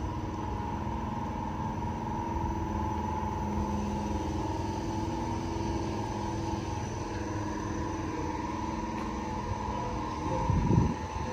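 Motor vehicle engines running, a steady rumble with a brief louder surge about ten and a half seconds in.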